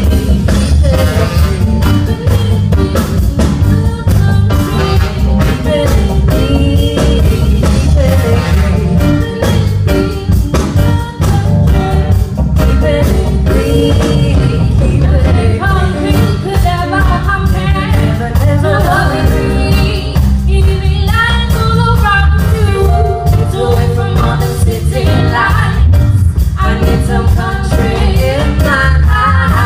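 A live band playing a song with a lead singer, over a steady beat and heavy bass.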